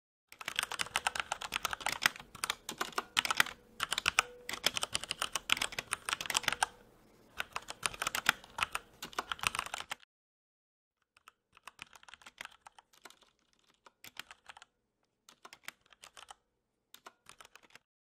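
Fast typing on a Velocifire TKL02WS mechanical keyboard with PBT keycaps. For about ten seconds the keys clack loudly, bottoming out without O-rings. After a short gap the same typing returns much quieter and softer, with rubber O-rings under the keycaps damping each keystroke.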